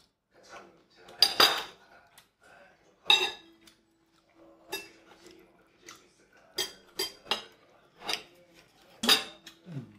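Steel knife and fork clinking and scraping against a ceramic plate while cutting a lamb chop, in irregular sharp strikes with short gaps between.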